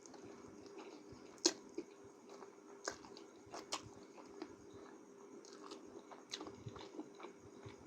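A person chewing a mouthful of instant noodles: soft wet mouth clicks and smacks, the sharpest about a second and a half in, over a faint steady hum.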